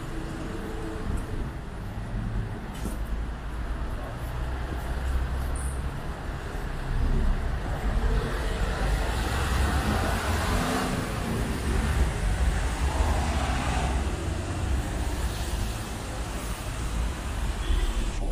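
Road traffic on a wet city street: a steady low rumble of engines, with the noise of passing vehicles growing louder from about eight seconds in and easing off near the end.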